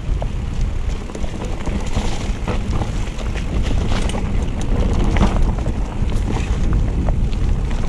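Wind rumbling on the microphone of a mountain bike riding down a dirt singletrack, with the tyres on the dirt and frequent short clicks and rattles from the bike over bumps.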